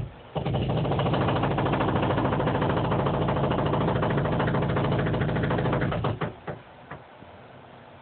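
Jackhammer pounding outside, heard from indoors: a loud, rapid, steady stream of blows for about six seconds, then stopping with a few short last bursts.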